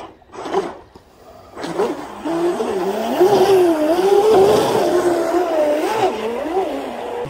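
Radio-controlled speedboat under way: its motor gives a whine that wavers up and down in pitch with the throttle, over the hiss of water off the hull. The boat is running with its trim tabs fully down, bow pressed low into the water.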